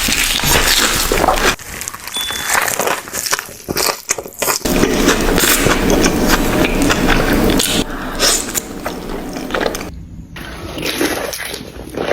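Close-miked eating sounds: wet slurping and crunching chewing in irregular noisy bursts, with brief lulls.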